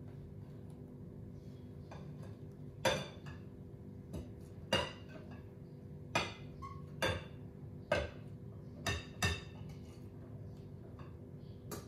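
Kitchenware clinking: about eight sharp, ringing clinks of utensils against dishes or a pan at irregular intervals, over a steady low hum.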